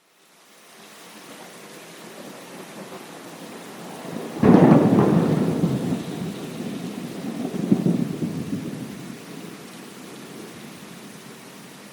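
Steady rain fades in, then a loud thunderclap breaks about four seconds in and rolls on, swelling again near eight seconds before dying back under the rain.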